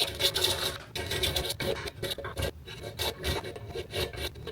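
Hand file rasping in quick repeated strokes, taking down a part so it slides into a track more easily.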